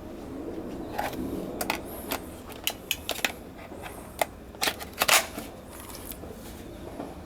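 A series of irregular short clicks and knocks over a low steady background, the loudest cluster about five seconds in.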